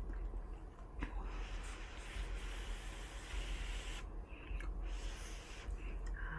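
Close-miked eating sounds over hot noodle soup: a click about a second in, then an airy hiss lasting about two and a half seconds and a shorter one near the end, like breath blown over or drawn in with hot noodles. A steady low hum sits underneath.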